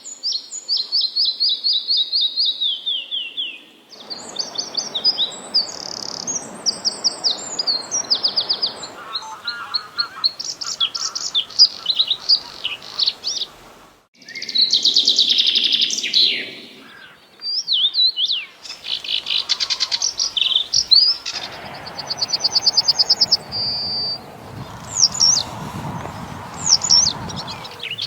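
Small songbirds singing and chirping: a series of different songs made of fast trills and quick repeated high notes, some sliding downward, over a soft steady hiss.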